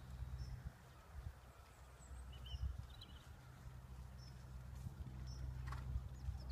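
Low wind rumble on the microphone, with a few faint bird chirps about two and a half to three seconds in.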